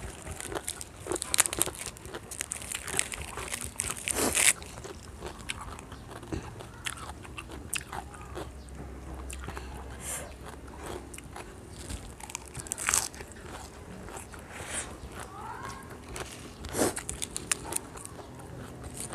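A person biting and chewing crunchy raw vegetables, in irregular clusters of crisp crunches. The crunches are loudest about four seconds in and again near thirteen seconds.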